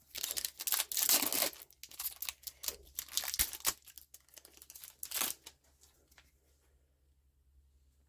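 A trading-card booster pack wrapper being torn open and crinkled: a run of rough tearing and crackling for about five seconds, then only faint handling.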